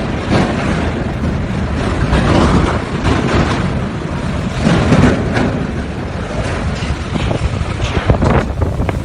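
Strong storm wind gusting and buffeting the microphone as a loud rushing that swells and drops, with a heavy low rumble.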